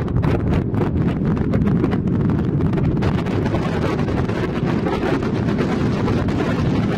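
Wind buffeting the camera's microphone: a steady, fluttering low rumble.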